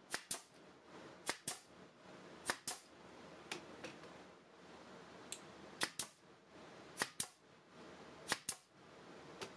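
A brad nailer firing nails into wooden trim, one sharp snap after another, mostly in quick pairs, about seven times.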